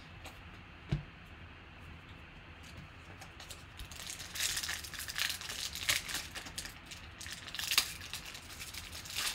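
A foil trading-card pack wrapper crinkling as it is handled and opened by hand, starting a few seconds in and going on in irregular crackles. A single soft knock comes about a second in.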